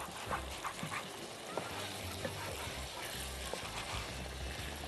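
Food frying in a hot pan: a steady soft sizzle, with a few faint light clicks and taps scattered through it.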